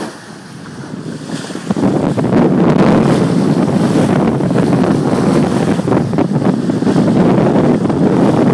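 Water rushing and splashing along the hull of a sailing yacht under way, with wind buffeting the microphone. It is quieter for the first second and a half, then steady and loud.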